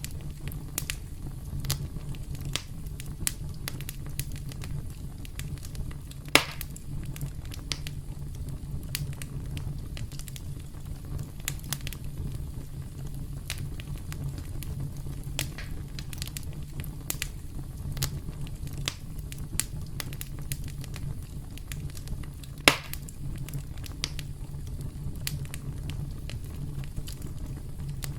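Campfire burning with a steady low rumble, crackling with irregular sharp pops, two of them louder, about six seconds in and near the end.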